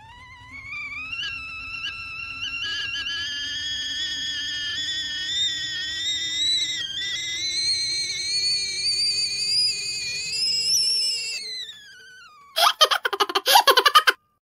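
Cartoon sound effect of a bubble being blown up: a long whistle-like tone that climbs slowly in pitch for about eleven seconds, then slides down and fades. About a second later comes a rapid sputtering rattle lasting about a second and a half.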